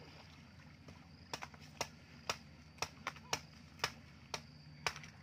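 A series of sharp knocks or taps, roughly two a second, starting about a second in and stopping near the end, over a steady low hum.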